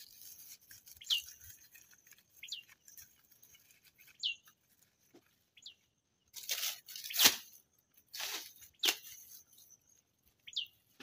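Dry banana leaves and fibre being torn and stripped from a banana stem, in a few loud rustling, crackling bursts in the second half. A bird gives short high chirps every second or two, over a faint steady high tone.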